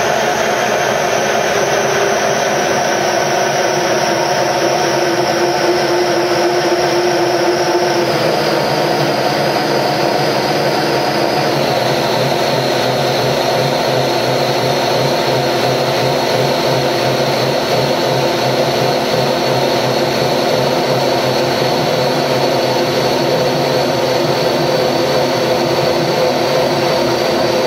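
CHB-Evo Stage 18 single-crank opposed-piston engine running steadily on a dynamometer, a loud mechanical drone with a high whine over it. Its pitch steps down a little about eight seconds in and again about twelve seconds in, as the running speed drops.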